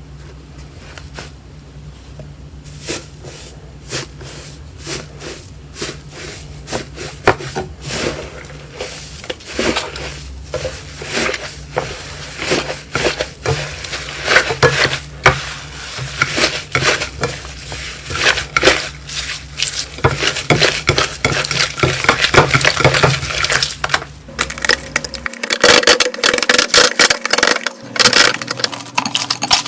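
Slime being squeezed and poked, giving a dense, irregular run of crackles, pops and clicks that grows louder and busier as it goes.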